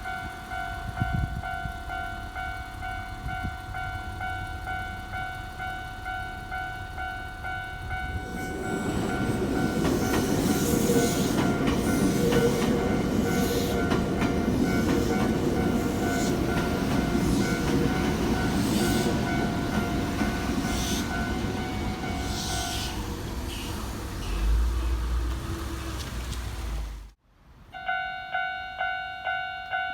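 Japanese level-crossing alarm bell ringing steadily as a Nankai Koya Line electric train passes over the crossing from about eight seconds in, its wheels running loudly on the rails for some twenty seconds. Near the end the sound cuts off abruptly and the crossing bell resumes in even, repeated strikes.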